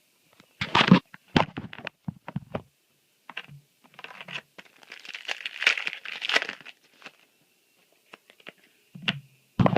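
A few sharp handling knocks, then a foil booster pack wrapper crinkling and tearing for a few seconds in the middle.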